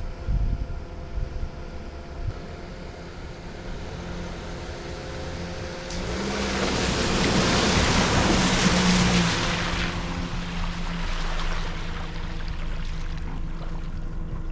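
Car engine working hard as the car drives through a water-filled, muddy rut, with knocks from the bumps early on. A rush of splashing water swells in the middle for about four seconds while the engine note rises, then settles back to the engine and tyres.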